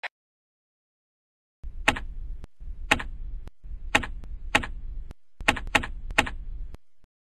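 A run of about a dozen sharp clicks at uneven spacing, one to two a second, like keys being struck, over a low hum that starts about a second and a half in and stops near the end. A single click comes right at the start.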